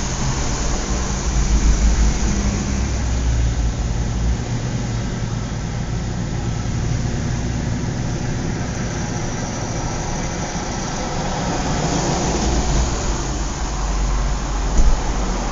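Suburban outdoor ambience: a steady rumble of road traffic, louder as vehicles pass near the start and again about twelve seconds in, with a brief click near the end.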